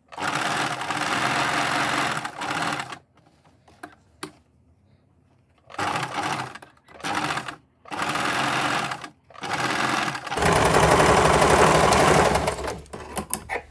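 Electric sewing machine stitching a collar in several separate runs, stopping and starting as the fabric is repositioned; the longest and loudest run comes near the end, followed by a few light clicks.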